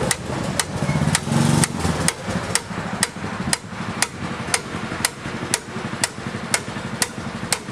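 Hammer striking the end of a steel drill-rod track pin in steady blows, about two a second, metal on metal. The blows are driving the new pin through the links of a tracked carrier's track.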